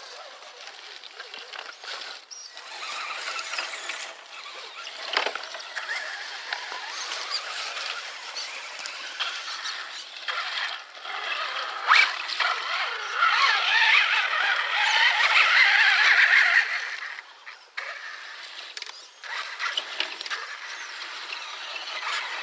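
Electric RC scale crawler trucks driving through a muddy creek pool, motors and gears whining while the tyres churn and splash in the mud. There is a sharp knock about halfway through, and the churning is loudest for a few seconds after it.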